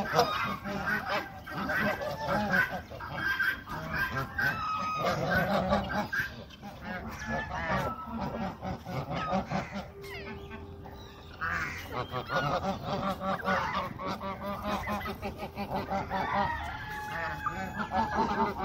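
A flock of Indian peafowl calling over one another with many short, overlapping calls, a near-continuous chatter that eases briefly about ten seconds in.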